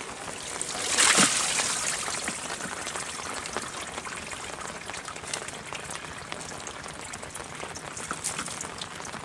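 Water: a loud splash about a second in, then steady trickling with scattered small drips.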